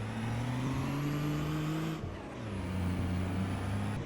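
Truck engine accelerating while driving, its pitch rising for about two seconds, then falling about halfway through at a gear change and running steadier and lower.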